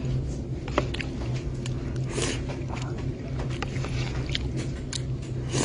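A steady low hum with many light clicks and taps scattered through it, and a short hiss about two seconds in and another at the end.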